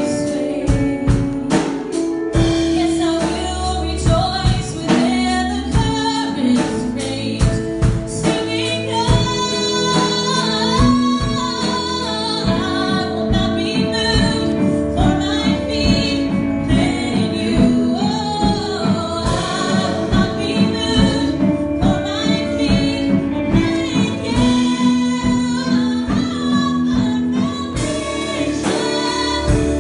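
Gospel worship song: a female voice singing over instrumental accompaniment with a steady beat.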